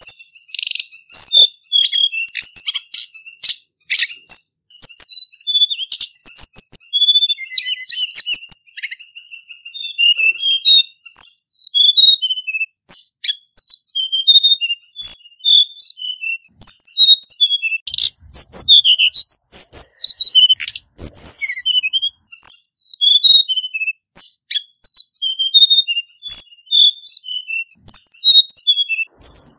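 Male Hill Blue Flycatcher singing: quick phrases of clear, high whistled notes that run up and down, separated by short pauses.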